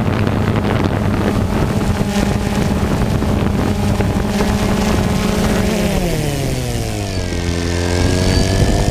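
A motor vehicle engine running steadily, its pitch falling about six seconds in as it slows, then slowly rising again, with wind buffeting the microphone.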